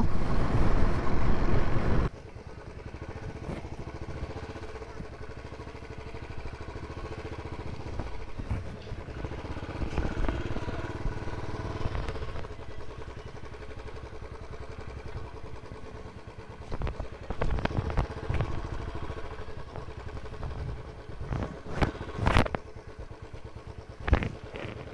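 Royal Enfield 350 single-cylinder motorcycle on the move with wind rushing over the microphone. About two seconds in, the loud rush drops away suddenly, leaving a quieter, steady low engine sound. Several short knocks and clatters come near the end.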